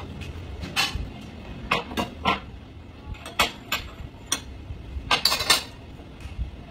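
Metal spoon clinking against ceramic bowls and plates: a string of short, light clinks, with a quick cluster about five seconds in, over a low steady background hum.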